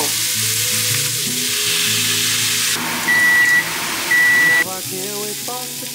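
Stir-fried cabbage and tuna sizzling in a stainless steel frying pan under background music, the sizzling dying down near the end. About three seconds in come two loud electronic beeps, each about half a second long and a second apart.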